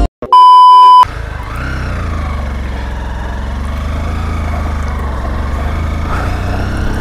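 A single loud electronic beep of under a second, then a motorcycle engine running steadily at low speed, heard from the rider's seat with wind noise on the microphone.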